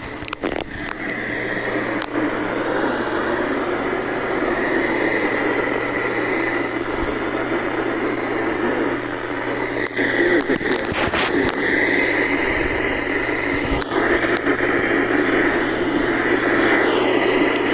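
Steady hiss of radio static from a weather radio receiver on a weak signal, with a low hum underneath and a few sharp crackles, two clusters of them about ten and fourteen seconds in.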